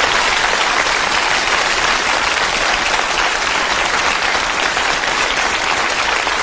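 A large auditorium audience applauding steadily.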